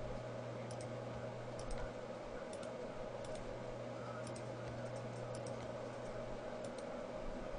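Faint, irregular clicks of a computer mouse and keyboard, about ten over a few seconds, over a steady low hum.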